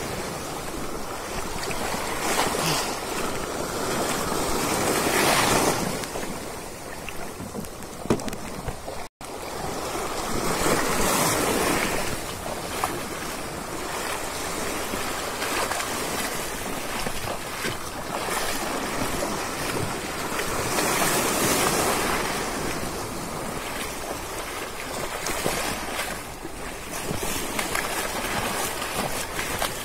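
Small sea waves washing over a low concrete breakwater, the surf swelling and easing every few seconds, with wind buffeting the microphone. The sound cuts out for a split second about nine seconds in.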